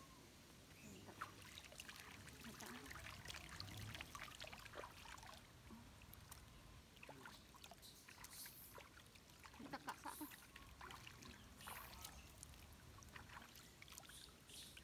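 Faint splashing and trickling of water as a baby monkey is washed by hand in a basin, with irregular small splashes and drips.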